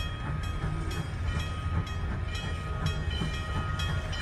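Steam locomotive bell ringing at a steady pace of about two strokes a second, each stroke ringing on, over a low rumble from the standing locomotive.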